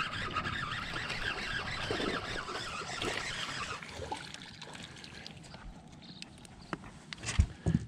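Water splashing and churning as a hooked largemouth bass thrashes in thick weeds beside the boat, loudest for the first few seconds and then dying down. A couple of sharp knocks near the end.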